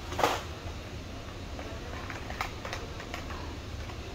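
Supermarket background sound: a steady low mechanical hum, with a brief loud noise about a quarter second in and a few light clicks and knocks around two to three seconds in.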